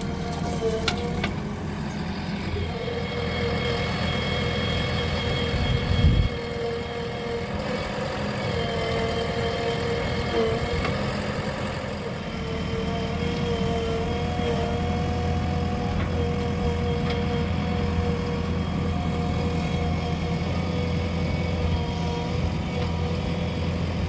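Diesel engines of a JCB 3DX backhoe loader and a tractor running steadily while the backhoe loads soil, with a steady whine over the engine hum. A brief low thump comes about six seconds in.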